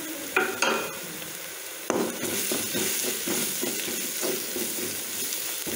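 Chopped onions and masala powders frying in coconut oil in a kadai. Two short ringing taps come in the first second, then from about two seconds in there is steady sizzling with the scrape of a spoon stirring the spices through the onions.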